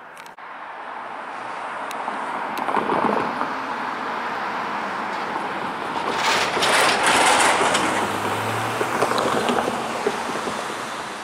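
A road vehicle passing close by. Its engine and tyre noise builds, peaks about six to eight seconds in, then fades away.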